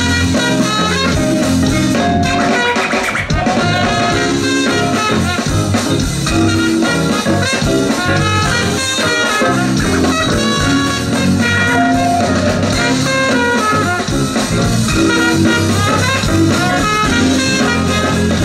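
Live band music led by a trumpet, played over a drum kit and guitar at a steady, loud level.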